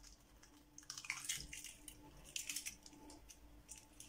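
Faint crackling of an eggshell being broken open over a plastic mixing bowl of flour, in two short spells about a second in and again midway.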